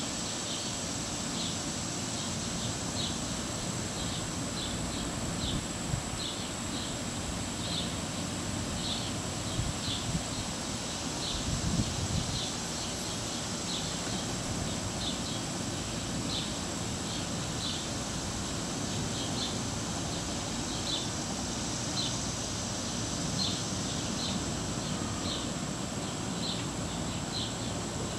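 Outdoor garden ambience: short high chirps, often in pairs, repeating about once a second over a steady thin high-pitched tone and a low wind-like rumble, which swells briefly near the middle.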